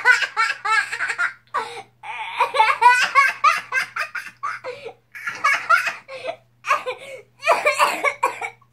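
A young boy laughing hard, in repeated high-pitched bursts with short breaks for breath.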